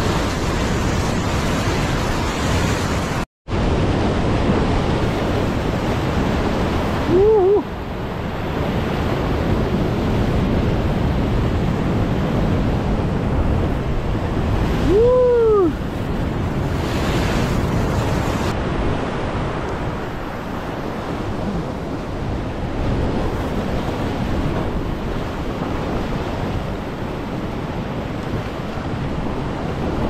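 Ocean surf breaking and washing over a rock ledge, with wind buffeting the microphone. The sound cuts out for a split second about three seconds in, and two short rising-and-falling calls stand out, about eight seconds apart.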